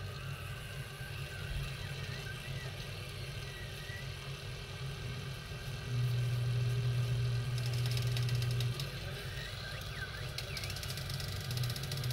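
A steady low motor-like hum that gets louder for about three seconds midway, with faint clicks near the end.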